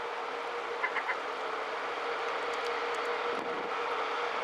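Network Rail C2103 rail grinder approaching slowly from a distance: a steady engine hum with a held tone, growing slightly louder. Three short pitched calls sound about a second in.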